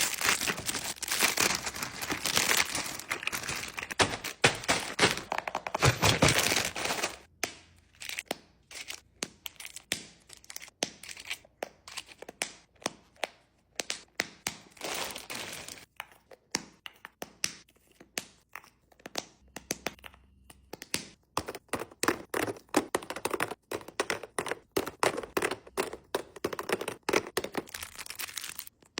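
Plastic Easter eggs being filled with candy and small toys: hollow plastic clicks and snaps as the halves are handled and shut, with wrapped candy crinkling. The crinkling is dense for the first several seconds, then gives way to mostly scattered clicks that thicken again near the end.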